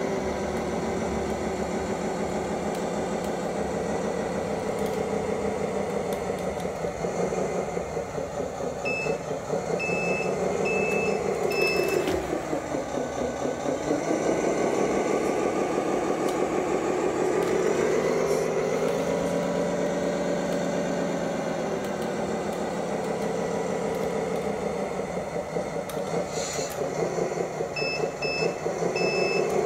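Tamiya King Hauler RC dump truck's sound unit playing a diesel truck engine, the revs rising and falling slowly several times as the truck drives. A run of evenly spaced reversing beeps sounds about a third of the way in and again near the end.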